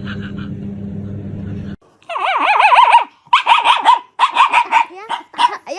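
A steady low hum, then after a cut about two seconds in, a dog giving a run of short, wavering, high-pitched yelps and howls in separate bursts.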